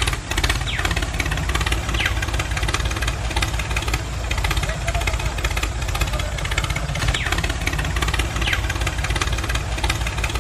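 Diesel tractor engine running steadily with an even low chugging, with a few short higher falling squeaks over it.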